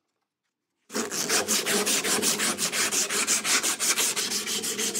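A strip of 320-grit abrasive cloth shoe-shined back and forth around the steel handle of a Record No.52 vice, polishing the metal. The rapid, even rubbing strokes, several a second, start about a second in after silence.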